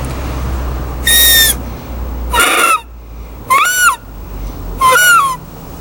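Grass whistle: a blade of grass stretched between the thumbs and blown through, giving four short shrill squeals about a second apart, the first held steady and the later ones rising and falling in pitch. It is blown as an imitation of an agouti's call, to lure a larger animal.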